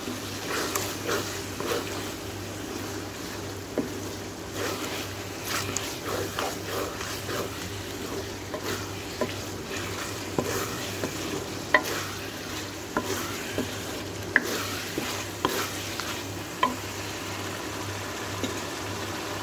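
Wooden spoon stirring and scraping minced mutton around a steel kadai while it sizzles in the oil, with a few sharp taps of the spoon against the pan. The qeema is being fried with freshly added yogurt.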